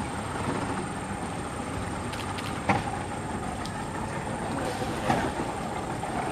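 Bornean pygmy elephants wading through river water, with two brief sharp splashes about a third of the way in and again near the end, over a steady background noise.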